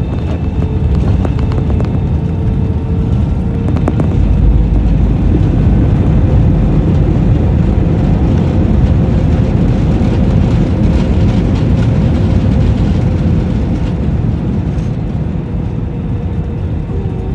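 Jet airliner heard from a cabin window seat over the wing, rolling on the ground just after landing: a loud, steady engine hum over a deep rumble. The sound swells about four seconds in and eases slightly near the end.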